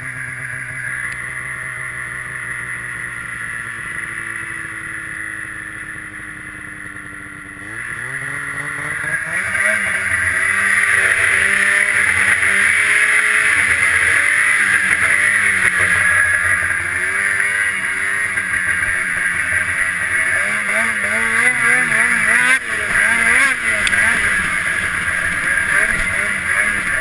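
Ski-Doo 600 RS snowmobile's two-stroke twin engine running at low, steady revs, then throttled up about eight seconds in. Its pitch climbs, then rises and falls with the throttle at speed.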